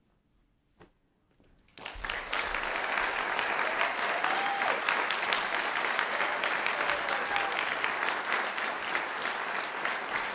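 A near-silent pause, then about two seconds in an audience breaks into steady applause, with a couple of short whoops through it.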